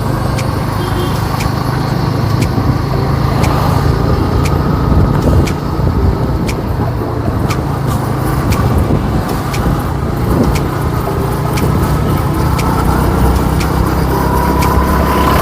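Yamaha R15 motorcycle riding at steady speed: engine and road noise with heavy wind rumble on the microphone. A thin steady whine comes in near the end.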